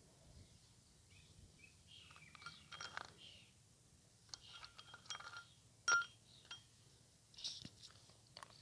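Faint birdsong with scattered chirps, mixed with a few light clinks and taps. The sharpest tap comes about six seconds in.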